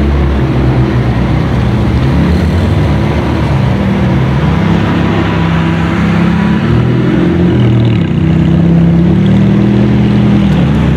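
Ferrari V8 engines, a 360 Modena and an F430, running at low speed as the cars creep past. The engine note rises and falls with small throttle changes and is loudest a little after the middle.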